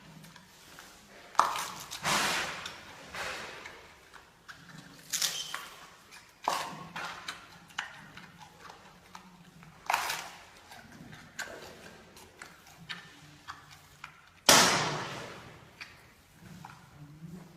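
Giant panda biting through bamboo stalks: about six loud, sharp cracks as the stalks split, with smaller crunching clicks of chewing between them.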